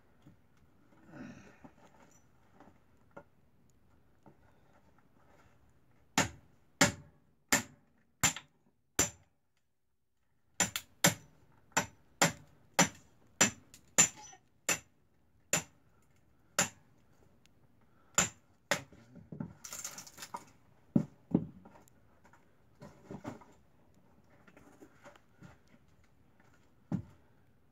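Hatchet splitting kindling: a run of sharp chops with a slight ring, five about two-thirds of a second apart, then after a short pause a longer, slowing series, and a few softer knocks of wood near the end.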